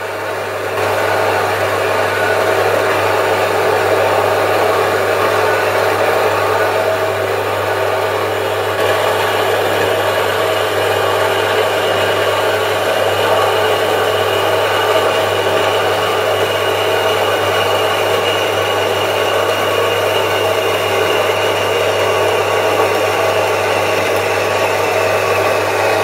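Horizontal metal-cutting bandsaw running steadily, its blade cutting through a small steel flat bar at a 45-degree angle, with a low motor hum underneath.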